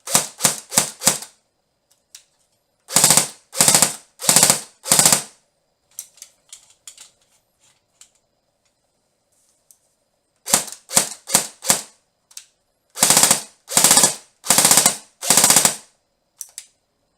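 Tokyo Marui M4 S-System electric airsoft gun firing with a silencer fitted: about five quick single shots followed by four short full-auto bursts, then a pause with faint clicks, then the same pattern again. The first series is fired through a 35 Stout 195 mm silencer and the second through a Tokyo Marui No.99 Pro silencer.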